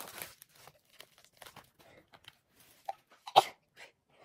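A person sneezes once into the crook of her arm, a short sharp burst about three and a half seconds in, after a brief intake sound just before it.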